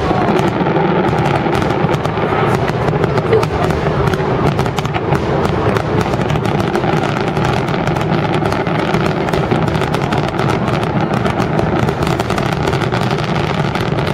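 A dense barrage of fireworks shells bursting in rapid succession: many overlapping bangs and crackles with no break between them.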